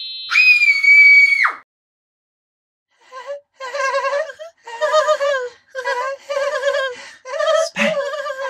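A high whistle-like tone held for about a second and a half, sliding down as it stops. After a short silence comes a run of squeaky, very high-pitched voices chattering without words in short, wavering bursts.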